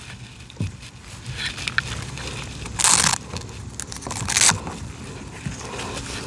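Rustling and scraping as a tie-down strap is fed under a kayak hull and pulled through grass, with two louder scrapes about three seconds in and about four and a half seconds in.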